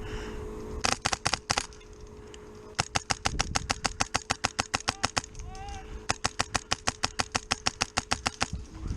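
Airsoft gun firing in automatic bursts: a short burst of about five shots, then two long bursts of about twenty shots each at roughly nine shots a second.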